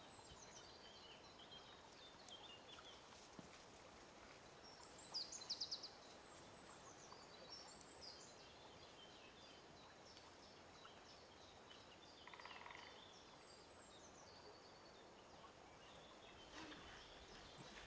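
Faint birdsong over a low hiss: scattered high chirps, a brief loud run of rapid high notes about five seconds in, and a short buzzy call about twelve seconds in.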